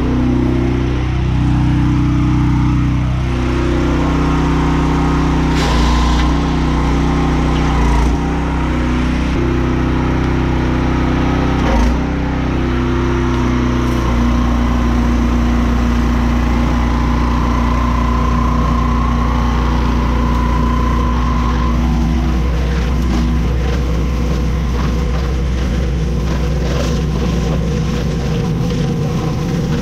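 Pressure washer engine running steadily under load, with the spray hiss of a rotary surface cleaner being pushed over wet paving; the engine's pitch shifts a few times in the first half.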